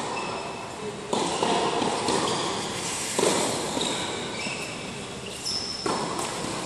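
Tennis balls being struck and bouncing on a hard court in a large indoor hall, several sharp knocks each followed by a long echo, with a few short high squeaks in between.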